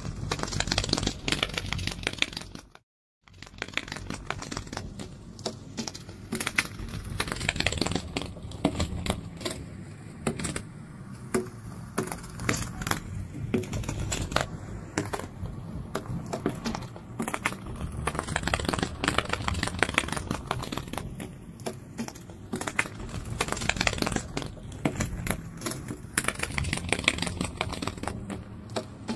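Dense, irregular clicking and rustling over a low rumble, cutting out completely for a moment about three seconds in.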